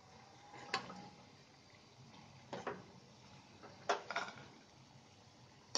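Steel slotted spoon knocking a few times against a pan of hot oil as deep-fried pieces are lifted out, over a faint sizzle of frying.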